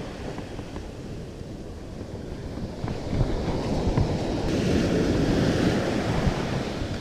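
Ocean surf breaking and washing up a sandy beach, with wind buffeting the microphone; the wash grows louder about three seconds in.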